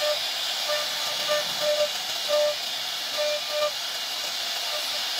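CNC router spindle running and carving a wooden panel with a small bit: a steady hiss, with short pitched buzzes recurring several times as the bit cuts.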